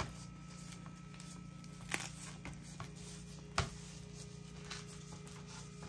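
Soft handling sounds of sticky rice being pressed and wrapped around chicken pieces by hand, with faint crinkling and a few sharp clicks, the loudest about two and three and a half seconds in, over a steady low hum.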